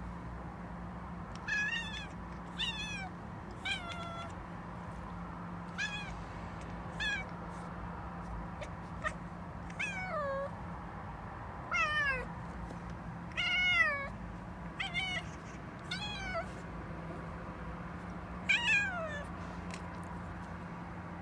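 Domestic cat chattering: a string of about fifteen short, pitched calls at irregular intervals, many of them arching up and then falling in pitch.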